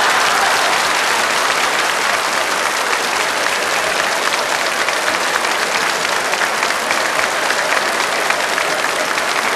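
Studio audience applauding steadily, with laughter at the start that dies away over the first couple of seconds.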